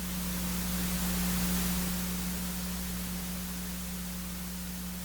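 Steady hiss over a constant low hum, the hiss swelling slightly in the first couple of seconds.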